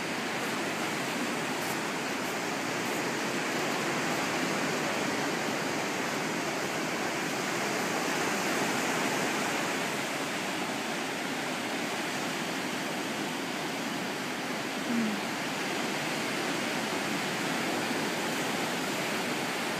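Ocean surf, waves breaking and washing over rocks, heard as a steady, even rush. About fifteen seconds in there is one brief short sound, a little louder than the surf.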